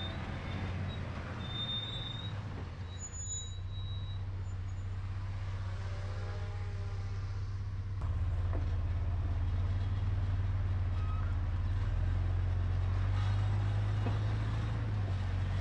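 Land Cruiser FZJ80's straight-six engine running at low, steady revs, becoming a little louder about halfway through.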